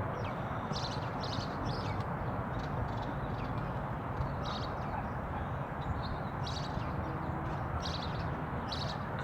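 Birds chirping: short, high chirps come every second or so over a steady background rush.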